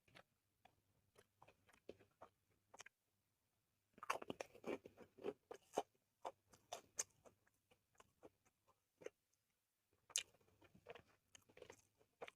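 Close-miked chewing and crunching of a mouthful of soy-sauce chicken and corn rice, with wet mouth clicks. The chewing comes in two louder spells, about four seconds in and again near ten seconds, with softer clicks in between.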